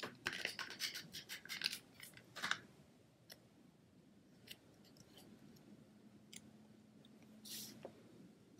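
Snail adhesive tape runner rolled along the back of a small paper cutout: a quick run of crackly clicks for about two and a half seconds. After that come a few faint paper ticks and a light rustle as the piece is pressed onto the card.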